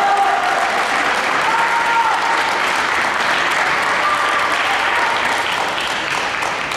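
Audience applauding steadily, a dense patter of many hands clapping, with a few voices calling out over it.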